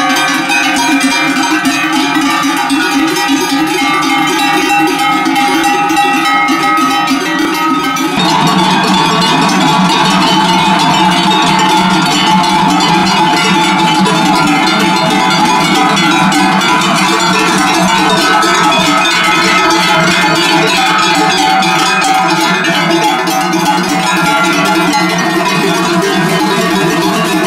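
Many cowbells worn by a herd of cattle clanging together without a break as the herd walks by. About eight seconds in, the mix of bells changes and gets a little louder.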